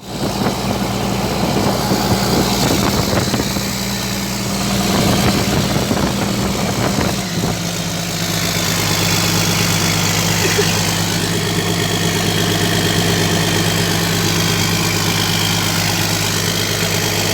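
Komatsu PC200-8 excavator's six-cylinder diesel engine running, freshly overhauled. About seven seconds in the engine note changes and settles into a steady idle.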